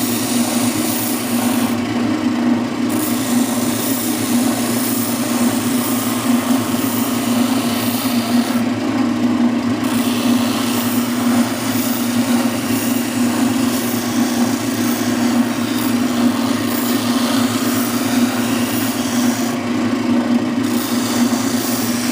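Oscillating spindle sander running steadily with a hum, its sanding drum grinding against the edge of a wooden panel as the edge is sanded to a cut line.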